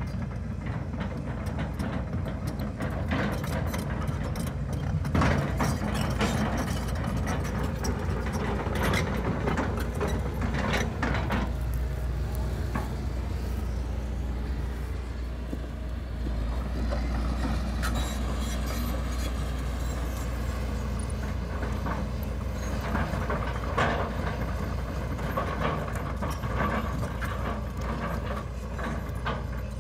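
Hitachi tracked excavator at work: its diesel engine running steadily under load, with repeated clanks and knocks from the bucket and steel tracks as it scrapes and pushes dirt, thickest in the first ten seconds and again near the end.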